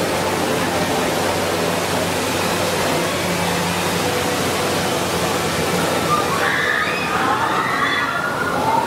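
Water-show fountains of a theme-park ride, many jets spraying and splashing down in a steady rushing hiss. Voices rise over it near the end.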